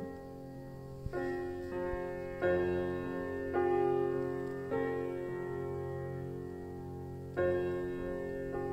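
Background music: slow piano chords, each struck and left to ring, a new chord coming every second or so with a longer hold before the last one.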